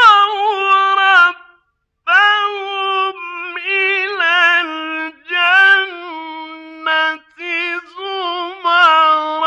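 A solo male Quran reciter chanting in the ornamented mujawwad style, holding long high notes with wavering melodic turns. He sings in several phrases broken by short pauses for breath.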